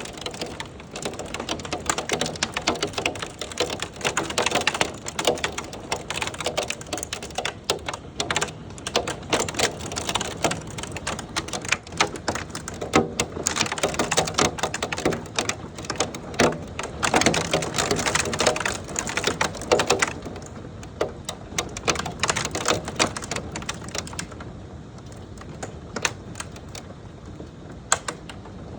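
Hail pelting down: a dense, rapid clatter of hailstones hitting hard surfaces over a rushing rain-like hiss. It thins out and grows quieter after about twenty seconds.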